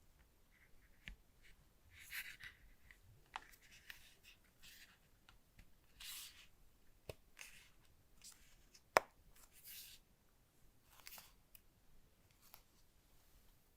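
Quiet handling sounds: scattered soft rustles and light clicks, with one sharper click about nine seconds in.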